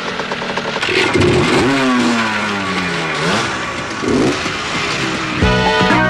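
Motorcycle engines revving and riding past, their pitch rising and falling, with one long falling sweep in the middle. About five seconds in, music with a steady beat cuts in.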